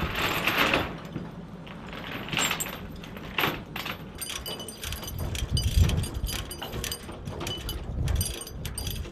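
Steel tie-down chains clanking and clinking as they are handled on a rail flatcar, the sharp metallic clinks coming thick and fast from about four seconds in, over a low rumble.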